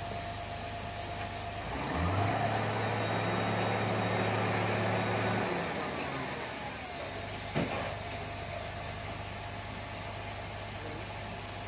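Diesel engine of heavy site machinery running over a steady low idle hum. It picks up and runs louder for about three and a half seconds from about two seconds in, then eases off. A single sharp knock comes about two seconds after that.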